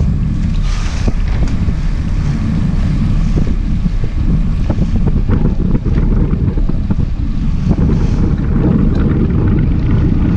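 Wind rumbling steadily on the microphone over a sportfishing boat's engine and water washing along the hull.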